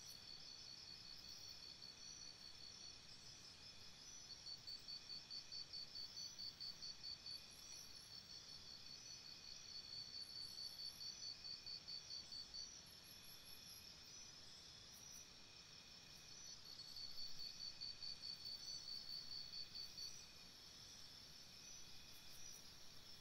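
Crickets chirping faintly: high, rapid pulsing trills that come in runs of a few seconds, with a few short, higher chirps from another insect now and then.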